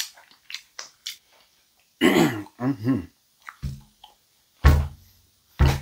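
Lip smacks and chewing clicks from a person eating a sauce-dipped fried chicken wing, then a short vocal sound falling in pitch about two seconds in. Music with a deep bass beat comes in after that, about one thump a second.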